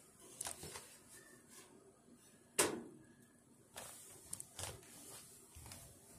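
Hinged metal front door of an electric stove-style heater swung shut with one sharp clack about two and a half seconds in, with lighter clicks and knocks before and after it.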